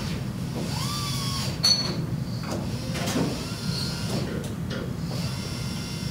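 Steady low hum of workshop background, with a few light clicks and taps as the aluminium sheets and a solid rivet are handled.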